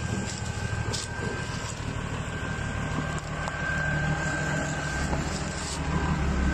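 Toyota Land Cruiser 4x4 engine running under load as the vehicle crawls up a steep dirt bank: a steady low drone with a thin, steady high whine above it, getting a little louder about two-thirds of the way through.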